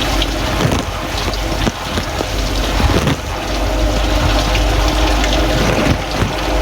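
Samsung dishwasher running in test mode, heard from inside the tub: the wash pump hums steadily while water sprays and splashes against the plastic bag around the microphone.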